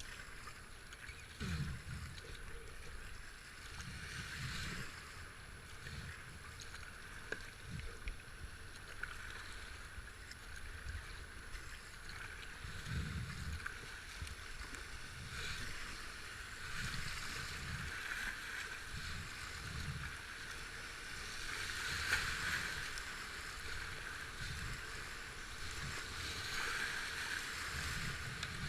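Kayak on river rapids: steady rushing water around the boat, with dull low thuds about every one to two seconds.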